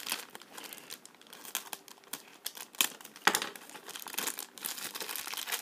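Shiny black plastic blind bag crinkling irregularly as hands handle it and pull it open, with a few louder crackles about three and four and a half seconds in.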